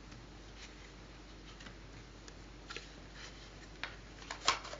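Quiet room tone with a few faint, scattered clicks, like small handling noises, several of them near the end.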